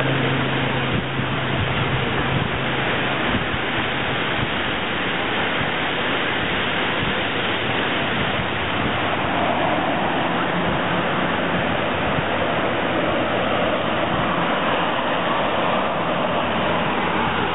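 Canadair amphibious water bomber's twin turboprop engines approaching, a steady rushing noise that takes on a stronger, higher tone in the second half as the plane comes overhead.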